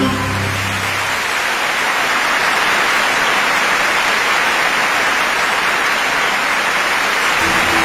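Audience applauding steadily, with music starting again near the end.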